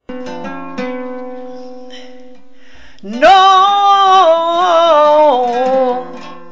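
Flamenco fandango: an acoustic guitar plucks a short phrase, then about three seconds in a woman's voice comes in loud on 'No', holding one long note with a wavering, ornamented pitch that falls away before the guitar returns.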